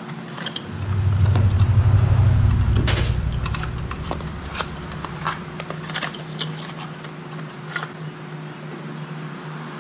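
Small metal clicks and taps of a tool working the screw that holds the breaker points in the tractor's Delco distributor. A low rumble swells about a second in and fades away over the next few seconds.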